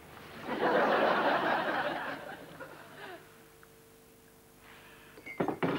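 Studio audience laughing after a sitcom punchline. The laughter swells about half a second in and dies away by about three seconds in. A few sharp knocks follow near the end.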